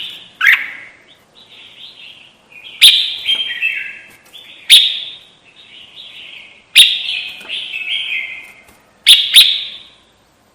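Crested bulbul (kutilang) calling: a loud, sharp note followed by a burst of short chattering phrases, repeated five times about every two seconds, played as a lure call.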